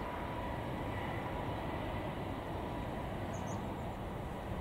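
Boeing C-17 Globemaster III's four Pratt & Whitney F117 turbofans running at taxi power: a steady rumble with an even, unchanging whine over it as the jet rolls along the taxiway.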